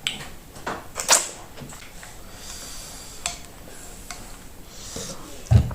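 Raw okra being chewed close to the microphone: scattered crisp crunches and clicks, the loudest about a second in and near the end.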